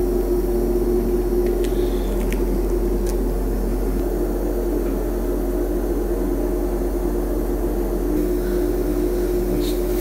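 A steady machine hum that holds one pitch throughout, with a few faint light ticks a couple of seconds in.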